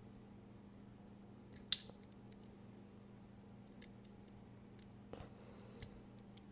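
A few small, sharp metal clicks and taps of a folding knife's parts and a small driver being handled, the loudest click about two seconds in, as the pocket clip is fitted back on.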